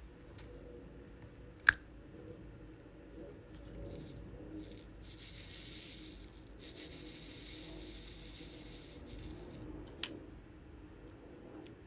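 Small handling noises of craft supplies: a single sharp click about two seconds in, a few seconds of rustling in the middle, and a softer click near the end.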